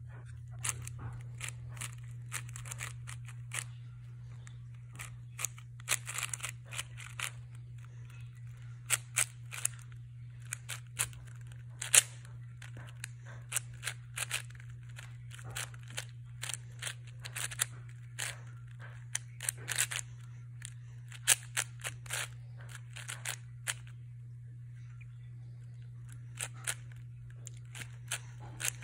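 A plastic 4x4 speed cube being turned by hand: quick, irregular clicks and rattles as its layers snap through turns, in flurries with short pauses, including a lull near the end. A steady low hum runs underneath.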